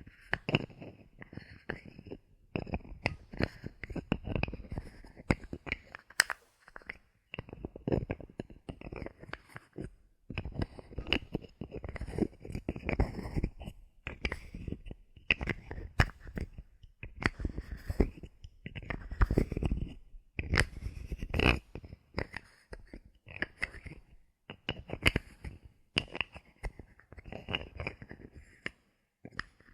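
Bottle caps handled close to the microphone: an irregular, dense run of clicks, taps and scraping that comes and goes in short clusters.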